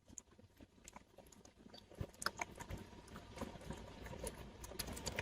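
Faint, irregular small clicks and crackles over a low hum, starting about two seconds in.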